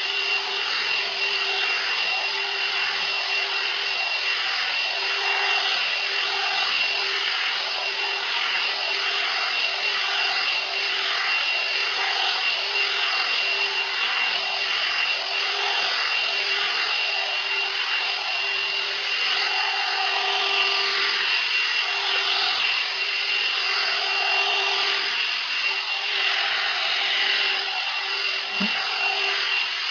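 1000 W hot air brush (hair dryer brush) running steadily: a rush of blown air with a steady high motor whine.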